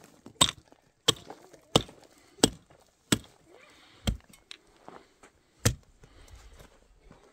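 A pickaxe striking hard, stony soil, about seven sharp blows roughly two-thirds of a second apart that slow towards the end, with gravel scraping between them.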